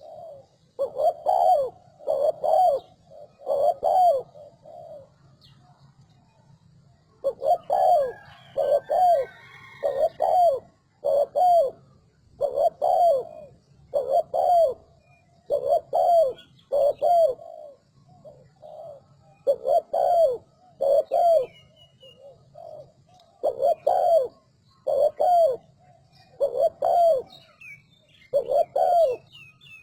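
Spotted dove cooing in quick, rapid-fire phrases, each short coo note about a second apart, with a break of about three seconds after the first few notes. Faint chirps of other small birds are heard at the same time.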